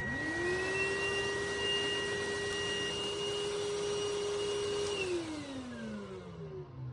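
Cordless stick vacuum (Rowenta XPert 6.60) switched on: the motor spins up quickly to a steady whine with airflow hiss, then is switched off about five seconds in and winds down in a falling tone.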